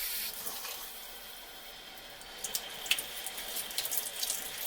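Kitchen tap running water while a sweet potato is washed and scrubbed under it by hand, with irregular splashes and rubbing that come thicker from about halfway in.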